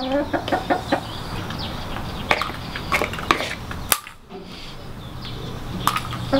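Hens clucking in short, low calls, most in the first second, with sharp taps and knocks scattered through.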